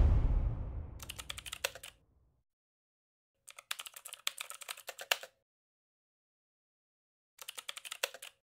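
Computer keyboard typing sound effect: three short bursts of rapid key clicks, the first after about a second, the second in the middle and the last near the end, with dead silence between. It opens on the fading tail of a deep boom.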